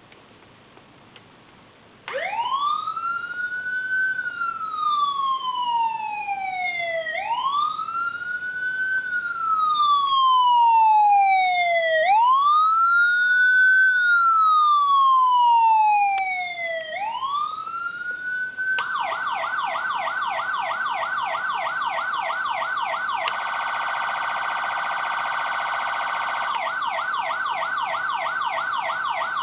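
SVP SA-450 electronic siren sounding through a siren speaker, held down in volume by a resistor load for bench testing. About two seconds in it starts a slow wail, rising over two seconds and falling over three, three times over. Near the two-thirds mark it switches to a fast yelp, with a few seconds of still faster sweeping in the middle.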